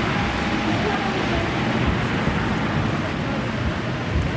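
Articulated electric tram running along the street at low speed, with steady street and traffic noise.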